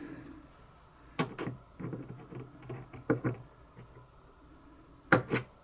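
A small metal hand tool clicking and tapping against the small metal tabs of a butane lighter's filler valve as they are pressed and bent over. The clicks come irregularly, with the sharpest pair about five seconds in.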